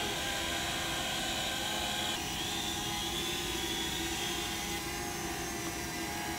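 Several small quadcopter drones, among them a DJI Mavic Air and a Parrot Anafi, hovering with their propellers giving a steady, layered whine. About two seconds in the mix of tones shifts, with some drop out and a higher whine coming in.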